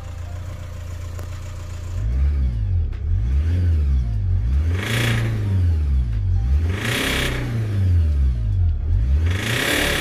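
Honda 2.2 i-DTEC four-cylinder diesel idling, then revved up and let back down about three or four times from about two seconds in. It knocks as the revs rise, a knock the owner first took for a bottom-end bearing but that a mechanic traced to a fuelling fault at the injectors.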